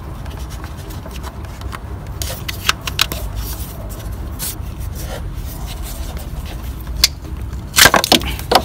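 Hands working among the hoses, wiring and plastic parts of a car engine bay: scattered small clicks and knocks, with a cluster of louder knocks near the end, over a steady low hum.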